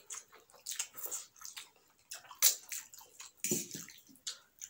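Two people slurping and chewing chow mein noodles, wet slurps coming in quick irregular bursts, loudest about halfway through.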